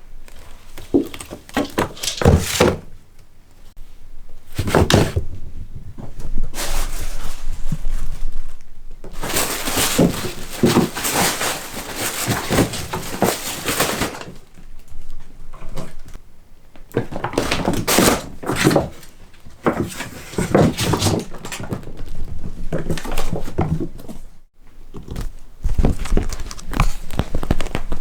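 Irregular rustling noise broken by knocks and thumps, with a long stretch of dense rustling in the middle.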